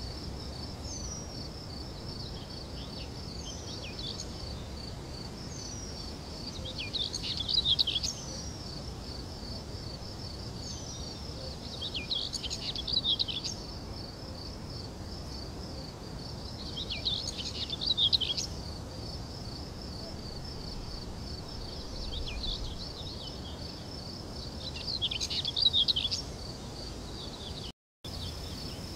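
Birds calling in clusters of quick chirps every five seconds or so, over a steady pulsing insect trill and a faint low rumble; the sound cuts out for an instant near the end.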